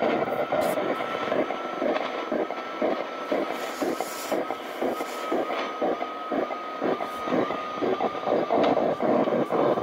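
Shortwave radio receiver tuned to a signal with no voice: choppy, pulsing static with a high beeping tone repeating about three times a second.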